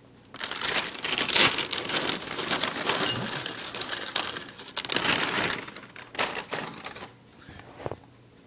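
Clear plastic cereal bag crinkling as it is handled, with the puffs shifting inside it. The crinkling is dense for about five seconds, then thins to a few scattered rustles.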